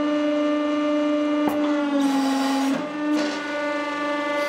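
Hydraulic press pump running with a loud, steady hum as the ram comes down on a pile of plastic airsoft BBs. A sharp crack comes about one and a half seconds in, and soon after the hum drops slightly in pitch for under a second as the press takes the load, then recovers.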